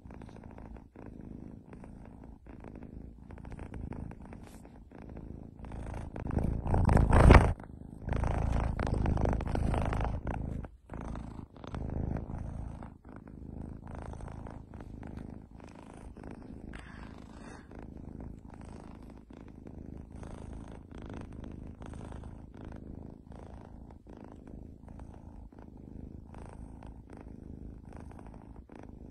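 Grey tabby kitten purring steadily close to the microphone. The sound grows much louder for a few seconds about a quarter of the way in.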